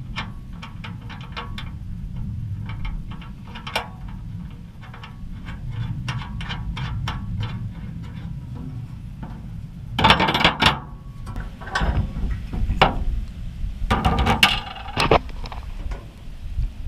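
Bolts and steel parts of a motorcycle hitch rack being handled during assembly: scattered light metallic clicks and ticks, then three bouts of louder metal clattering and clanking about ten, twelve and fourteen seconds in, over a steady low hum.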